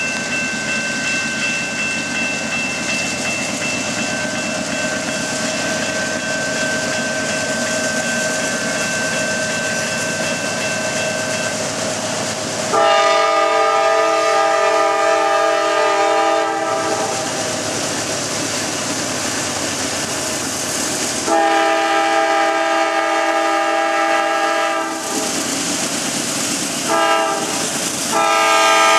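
GE C40-9W diesel locomotive pulling a heavy train away from a standstill, engine running loudly with a steady high whine over it. About halfway through, its multi-chime air horn sounds the grade-crossing signal: long, long, short, then a final long blast that is still going at the end.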